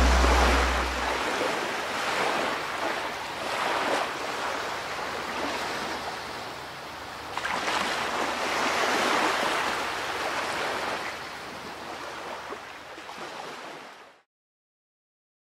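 Sea waves breaking and washing up a sandy shore, swelling and receding several times, then cut off suddenly near the end.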